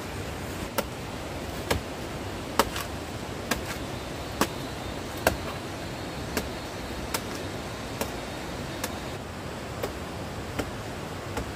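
Blade chopping into a banana plant: about thirteen sharp strokes at roughly one a second, heavier in the first half and lighter towards the end, over a steady rushing background noise.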